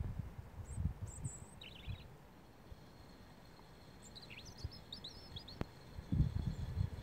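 European robin singing subsong: quiet, scattered high twittering and warbling phrases in short bursts. Low rumbling noise comes at the start and more loudly about six seconds in.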